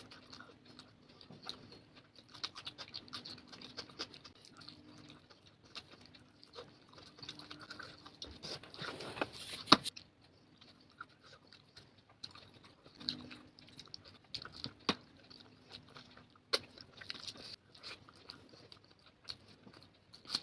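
Close-miked eating of vegetable fried rice: wet chewing and biting of mouthfuls, with sharp clicks now and then, the loudest about ten seconds in.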